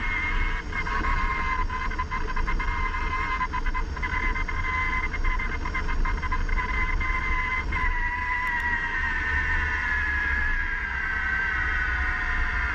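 AC Mayan off-road mobility scooter's AC electric motor whining steadily as it drives, with crunches and knocks from the tyres on loose gravel and a low rumble underneath. About eight seconds in, the whine starts falling in pitch as the scooter slows.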